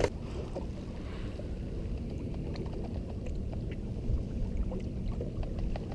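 Steady low rumble of water and wind around a small fishing boat, with faint scattered small clicks and taps.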